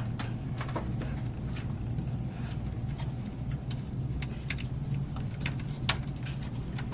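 Light clicks and taps of cables and plastic connectors being handled inside a computer case, scattered irregularly with one sharper click near the end, over a steady low hum.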